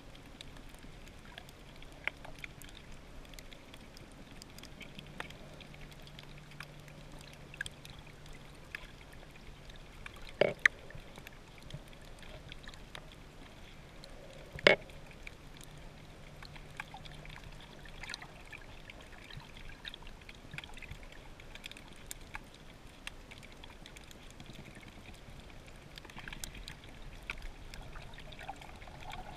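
Underwater ambience picked up by a camera in its waterproof housing: a faint steady hiss with scattered small clicks, two sharper knocks about ten and fifteen seconds in, and a faint low hum through the first half.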